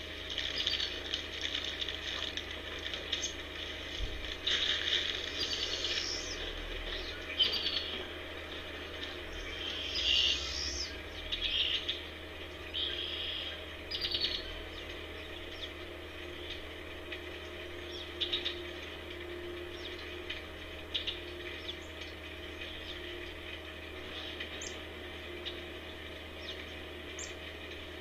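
Birds chirping and calling in short high bursts, busiest in the first half, with a few sharp clicks later on.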